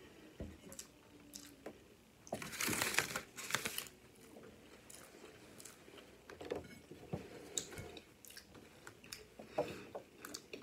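Close-miked eating sounds: chewing and biting with wet squishing and small clicks as sauce-covered seafood is picked out of a plastic container. There is a louder crackling stretch about two to four seconds in.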